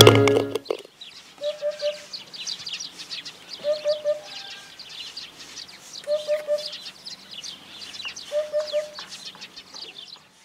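Birds calling: a low three-note call repeated four times, about every two seconds, over constant high chirping of many small birds.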